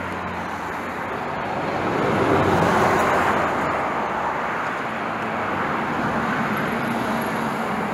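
Steady rushing street noise of a large crowd of bicycles rolling past on asphalt, swelling about two to three seconds in.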